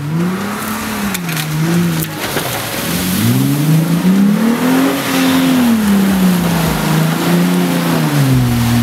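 Lifted Jeep Wrangler Unlimited JK's engine revving as it churns through mud, its pitch climbing and falling several times. Under it runs a steady rushing noise of spinning tyres and spraying mud.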